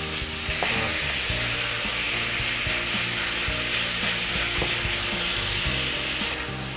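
Veal chunks sizzling as they brown in oil with a chopped onion, carrot and celery soffritto in a stainless steel sauté pan, stirred and scraped with a nylon slotted spatula. The high hiss falls away a little past six seconds in.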